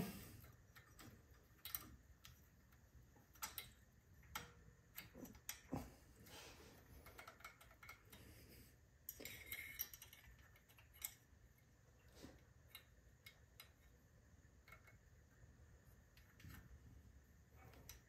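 Faint, irregular metallic clicks and taps of engine push rods being fitted back into place under the rocker arms, scattered through near silence.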